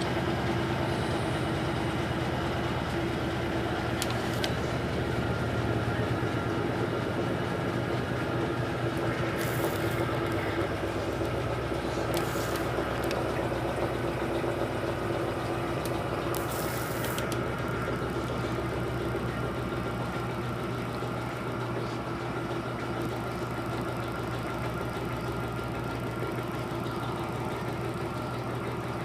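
Electrolux LT13B top-loading washing machine running its wash cycle: a steady motor hum with machine noise, broken by a few short hiss-like bursts.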